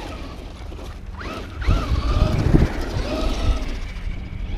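Traxxas Rustler 4x4 RC truck's electric motor and geartrain whining, rising and falling in pitch as the throttle is worked over the dirt humps. Loud low thuds come through in the middle of the run.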